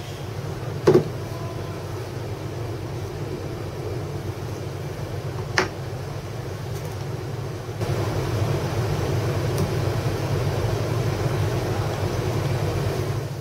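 A loud sharp knock about a second in and a smaller one later, as an angle grinder is set down and positioned on a wooden board, over a steady mechanical hum that gets louder about two-thirds of the way through.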